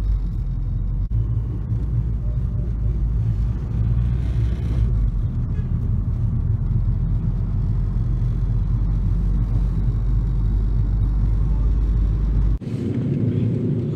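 Steady low rumble of a Toyota Camry's engine and tyres on the road, heard from inside the cabin while driving. Near the end the sound changes abruptly, the deepest rumble dropping away.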